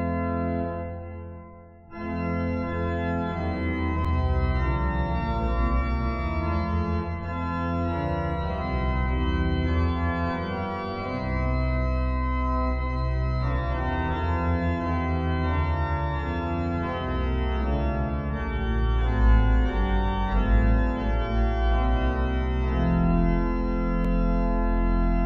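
Organ playing a hymn tune in sustained chords. It falls almost silent for a moment about two seconds in, then comes in again with the next line.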